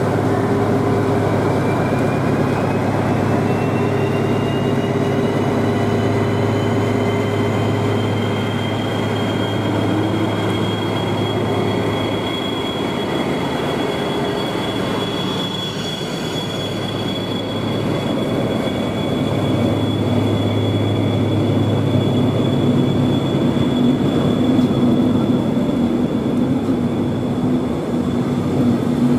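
DB class 218 diesel-hydraulic locomotive pulling out under power: its V12 diesel drones steadily, with a high whine that rises in pitch over the first few seconds and then holds. About halfway through the locomotive goes by and the coaches roll past on the rails.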